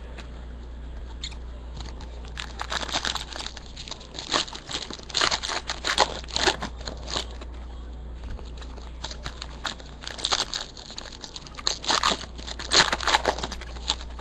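Foil trading-card pack wrappers crinkling and tearing as packs are opened by hand, with irregular sharp crackles.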